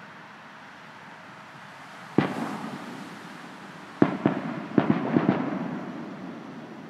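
Aerial firework shells bursting: one loud bang about two seconds in, then a quick run of five or six sharp bangs about four to five seconds in, each fading away slowly.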